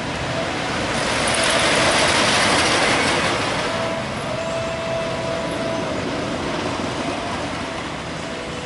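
Timber Wolf wooden roller coaster train passing along its track: a rush of noise that swells about a second in, peaks, and dies away after about four seconds.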